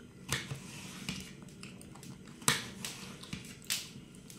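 Kitchen knife slicing a raw potato on a ceramic plate, a few sharp clicks of the blade, the loudest a little past halfway.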